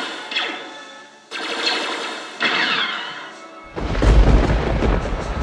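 Battle sound effects over background music: three sharp blaster-type shots about a second apart, one with a falling sweep. About two-thirds through comes a deep explosion rumble, the loudest sound.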